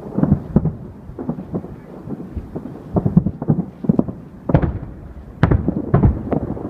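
Fireworks display: shells bursting one after another in an irregular string of deep booms and bangs, about a dozen in a few seconds.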